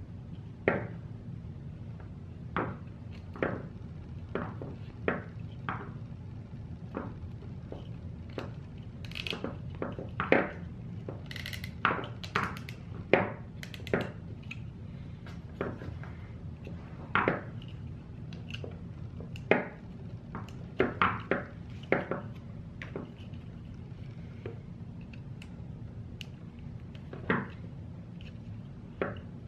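Irregular sharp clicks and ticks of plastic zip ties being threaded and pulled tight around wiring on a quadcopter frame, coming more thickly in the middle, over a steady low hum.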